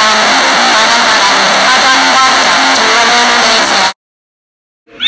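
Very loud, heavily distorted audio: a harsh wall of noise with a wavering pitched tone underneath. It cuts off abruptly about four seconds in, followed by a second of silence.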